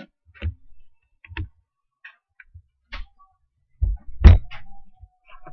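A few scattered knocks and thumps, the loudest about four seconds in.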